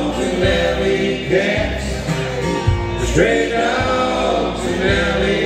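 Live bluegrass band playing a country gospel song, with fiddle, upright bass and acoustic guitars, and voices singing over it.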